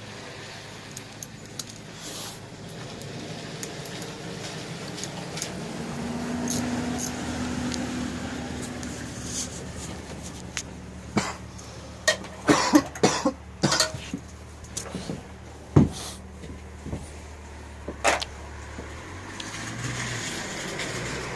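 Metal tools and bike parts knocking and clanking during wrench work, a cluster of sharp knocks and clicks in the second half, over a steady low hum.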